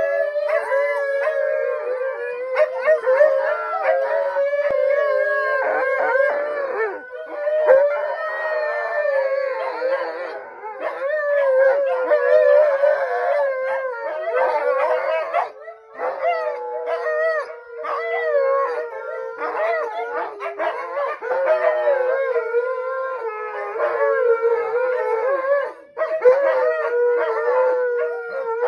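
Several dogs howling together, their wavering voices overlapping into one long chorus that dips briefly a few times.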